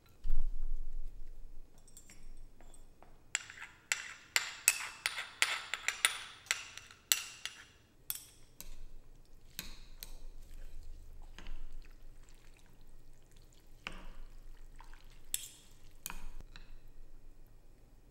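A ceramic soup spoon and chopsticks clinking and scraping against a bowl as pho is stirred, with the broth splashing, in a dense run of clicks that thins out to scattered taps. A dull thump comes right at the start.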